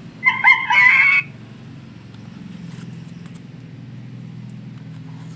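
A talking flashcard reader toy plays a recorded monkey call through its small speaker. The call is loud, wavering and pitched, and lasts about a second. A low steady hum follows.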